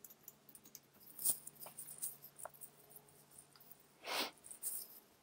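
Faint scattered clicks and taps of a computer keyboard and mouse, with a short hiss about four seconds in, over a faint low steady hum.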